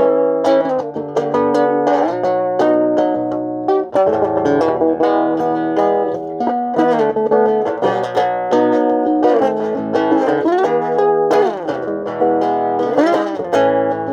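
Guitar being played, a run of picked notes and chords with several sliding, bending notes in the second half.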